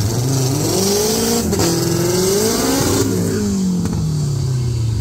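Drag car's engine revved up and down several times, then its pitch falls steadily as it drops back toward idle.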